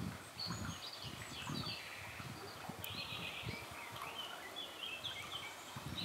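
Several songbirds chirping and singing in short, quick phrases, over a low, uneven rustle.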